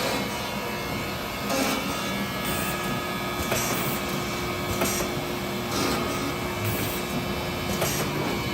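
Gannomat CNC boring, gluing and dowel-inserting machine running through its cycle: a steady hum from the drilling unit, with about five short blasts of compressed air at irregular intervals from the pneumatic clamps and the air-impulse dowel driver.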